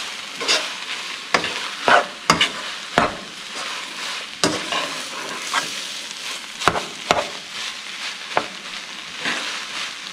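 Shredded chicken and potato filling sizzling in a frying pan while it is stirred, with a utensil scraping against the pan every second or so over a steady frying hiss.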